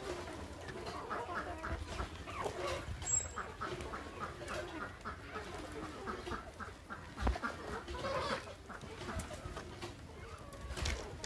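A flock of desi chickens clucking together as they feed, many short overlapping clucks repeating throughout.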